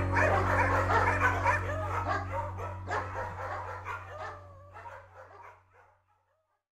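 Many dogs barking and yipping over a held low note as the song ends, the whole mix fading out to silence about six seconds in.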